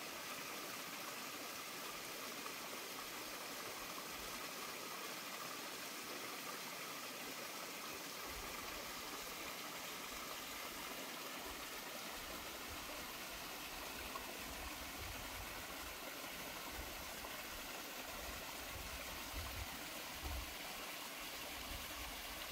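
Mountain stream splashing over rocks in a small cascade, a steady rushing of water.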